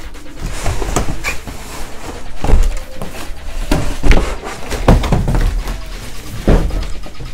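Cardboard rubbing and scraping as a large inner box is slid up out of its outer carton, with several thumps of the boxes knocking against each other and the table.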